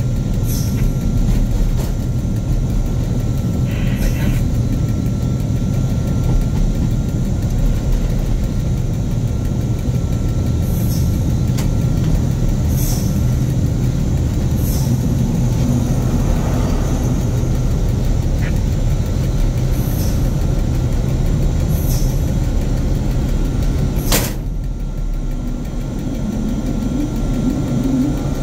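Diesel shunting locomotive heard from its cab while moving slowly: a steady low engine rumble with a sharp click every couple of seconds. About 24 s in there is a louder knock, and the engine sound drops a little as the locomotive comes up to the coaches.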